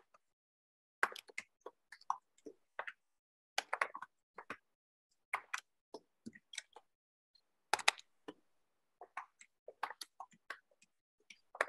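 Faint, irregular short clicks and ticks, a few each second, starting about a second in.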